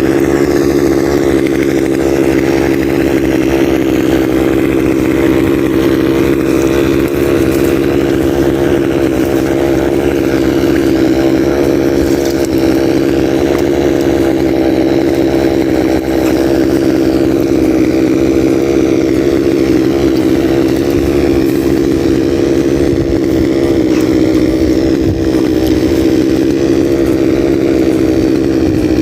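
Small gasoline engine of a yard cutting tool running steadily at high speed, its pitch held constant throughout.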